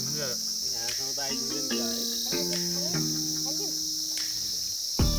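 Steady high-pitched chirring of an insect chorus, with other pitched tones over it.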